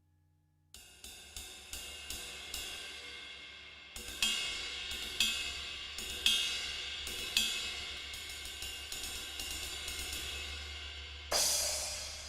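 Arborea Ghost cymbals being played for a sound test: a run of light strokes starting about a second in, louder ringing strokes from about four seconds, then a loud crash near the end that washes out.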